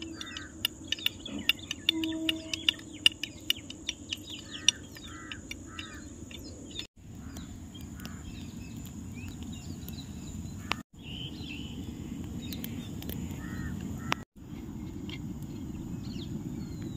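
Birds calling, with short crow-like caws, over a run of sharp clicks in the first few seconds. After that a steady low rushing noise takes over, broken by three brief dropouts.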